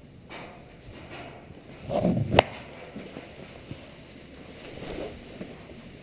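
Handling noise on a rider-worn camera, with clothing rustling against it. About two seconds in comes a loud muffled thump that ends in a sharp knock, with a smaller bump near five seconds.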